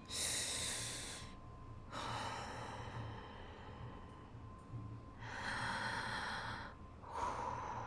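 A woman taking slow, deep breaths in and out, twice, soft and close.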